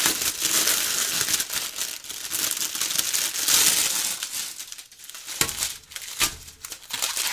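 Plastic packaging and small plastic bags of diamond-painting drills crinkling and rustling as they are handled, busiest in the first few seconds, then a few separate crackles.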